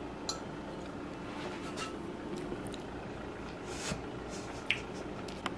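Quiet room tone with a steady low hum, broken by a few faint, scattered clicks and small taps.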